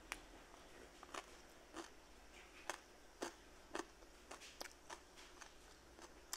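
Someone eating: about a dozen faint, sharp, crisp clicks and crunches come at irregular intervals over near silence.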